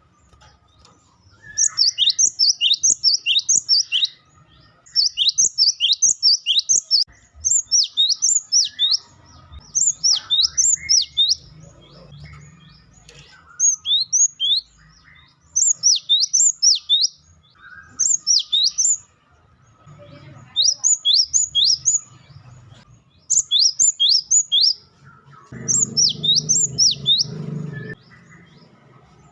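Cinereous tit (gelatik batu) singing: about ten bursts of rapid, high, downward-sweeping whistled notes, each burst lasting one to two seconds, with short pauses in between.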